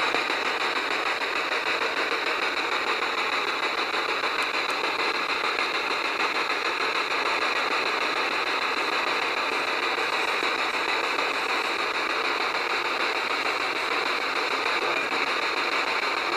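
Continuous, even rushing hiss with no distinct events.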